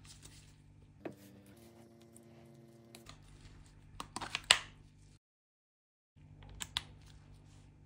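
Handling noise of a cordless impact driver and its socket adapter: small plastic and metal clicks and knocks, the loudest a sharp click a little past halfway. A faint steady hum runs for about two seconds starting about a second in, and the sound drops out completely for about a second near two-thirds of the way through.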